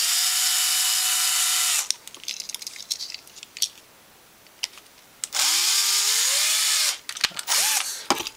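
Small cordless screwdriver spinning a drill bit to drill out the rivet post of a diecast car so the car can be opened. It runs in two short spells with a steady whine, stopping about two seconds in and starting again with a rising spin-up about five seconds in. Small clicks and knocks of handling come between the spells.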